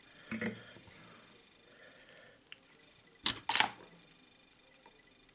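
Faint hand-handling noises of fly-tying materials at the vise, fingers working the tying thread and a plastic strip, with a short rustling scrape about three seconds in.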